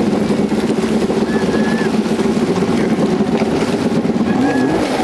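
Boat engine running steadily, an even hum.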